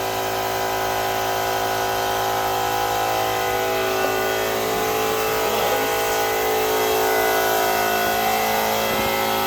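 Air compressor motor running steadily during spray painting: a constant hum with several fixed tones over a hiss.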